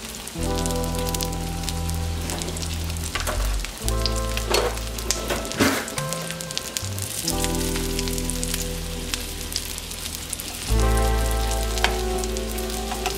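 Panko-crusted halibut fillets shallow-frying in olive oil in a pan, a steady sizzle with crackles and a few louder pops around the middle. Background music with a steady bass line plays under it.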